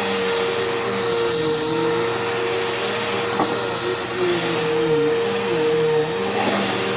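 Bissell PowerForce Helix upright vacuum cleaner running on carpet: a steady high motor whine over lower hums that dip and rise in pitch every second or so as it is worked back and forth.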